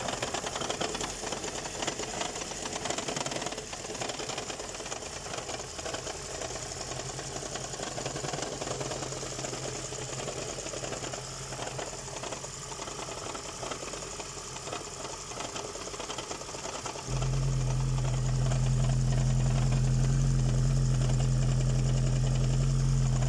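Car engine running with a fast, rhythmic knocking: the knock that the owner hears while the engine is charging, which goes away at idle. About 17 seconds in, a much louder low, steady hum sets in and carries on.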